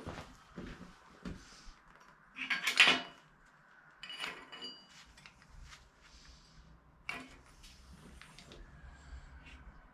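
Metal objects being handled and set down: scattered knocks and clatter, a short scraping burst about two and a half seconds in, a clank with a brief metallic ring about four seconds in, and another sharp knock near seven seconds.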